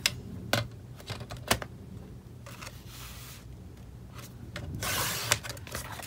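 Sliding-blade paper trimmer cutting patterned paper: a few sharp clicks as the sheet and blade carriage are set, then the carriage scraping along its track, softly about three seconds in and louder about five seconds in.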